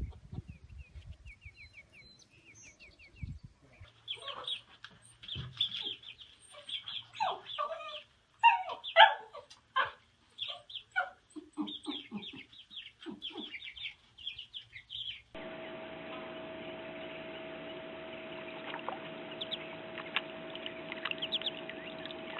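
Birds calling in quick short notes, many in a row. After a sudden change, a steady hum carries a few faint chirps.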